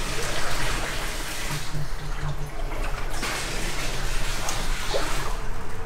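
Floodwater sloshing and splashing unevenly around the legs of someone wading through it.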